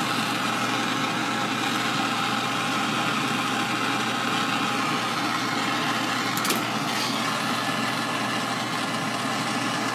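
Hand-held gas torch burning with a steady hiss while its flame heats silver pieces to flow solder, with one short tick about six and a half seconds in.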